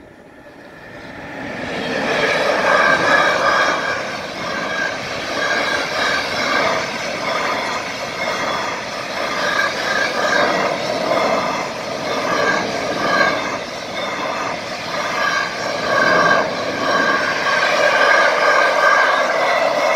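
Freight train of empty container flat wagons passing over a level crossing, wheels running on the rails with a recurring high ringing note. It builds over the first two seconds as the train arrives, then stays loud and steady.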